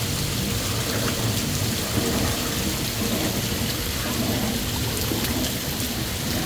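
Steady rain-like patter of water drops, many small ticks over an even hiss, with a continuous low rumble beneath.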